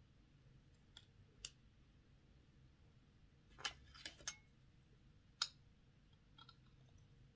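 Scattered sharp clicks and taps of small plastic and metal parts being handled and fitted on a model locomotive's chassis, the loudest a little past the middle.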